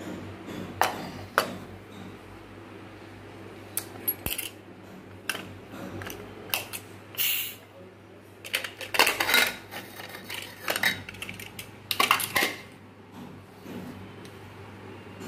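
Sharp metal clicks and clatter of a pressure cooker lid being unlocked and lifted off, metal knocking on metal in irregular bursts that are busiest a little past the middle and again about three quarters through. The cooker is being opened after its pressure has been left to drop on its own.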